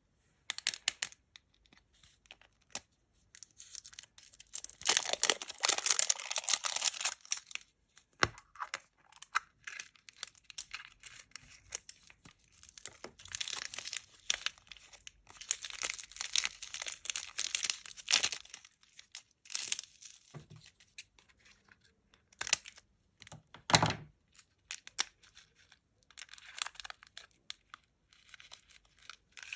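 Foil wrapper of a Kinder Surprise egg being crinkled and torn off by hand in long rustling spells, with a few sharp knocks between them, the loudest about three-quarters of the way through.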